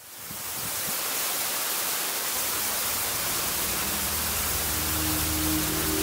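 Steady rushing hiss of an 18 m waterfall pouring into its plunge pool, fading in over the first second. Held low music notes enter softly about four to five seconds in.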